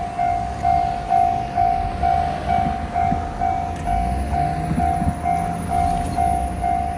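Japanese railroad crossing warning bell ringing its repeated single-pitched "kan-kan", about two strokes a second, over the low rumble of a train.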